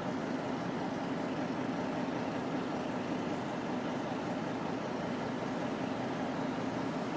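Diesel-electric locomotive engines running steadily with an even drone.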